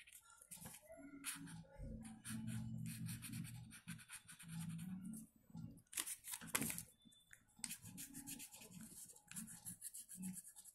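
A colouring pen scratching on paper in repeated short strokes, drawing and filling in star shapes on a paper envelope.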